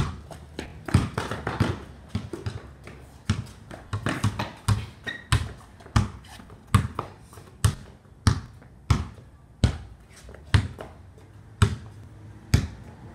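Basketball dribbled on a concrete driveway: a run of sharp bounces, irregular at first, then settling into a steady beat of about one bounce a second or slightly faster.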